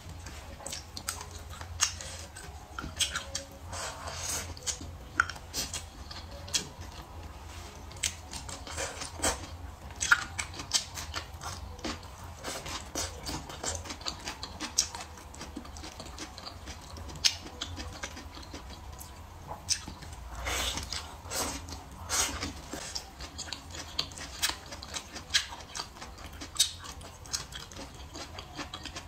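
A person chewing and eating with chopsticks: wet mouth smacks and sharp little clicks, several a second, with brief louder bursts here and there.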